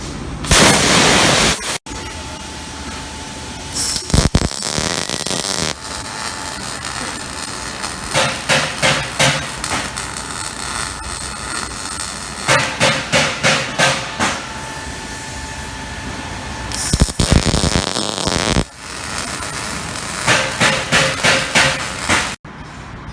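CNC plasma table cutting quarter-inch carbon steel plate: a loud, harsh hiss with stretches of fast rhythmic crackling, in several short clips joined by abrupt cuts.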